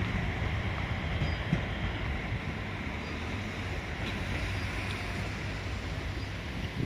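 Diesel railcar running along the track, its low rumble slowly fading as the train moves away.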